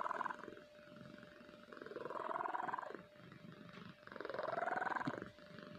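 Domestic cat snoring in deep sleep: slow, rhythmic snores about every two seconds, with two long loud snores and quieter breaths in between.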